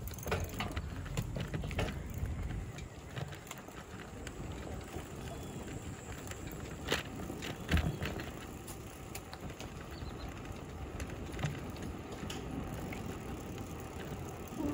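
Bicycle being ridden on an asphalt road: steady rolling and wind noise with scattered clicks and rattles from the bike, and a thump about eight seconds in.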